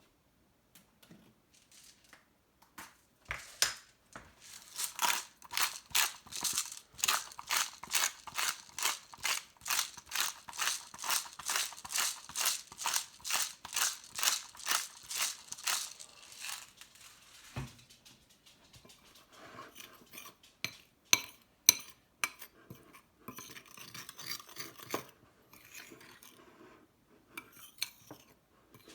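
Black pepper being added to a spice rub with a long run of even, crunchy strokes, about two or three a second, stopping about two-thirds of the way through. After that come scattered clicks and clinks, two of them sharp and loud.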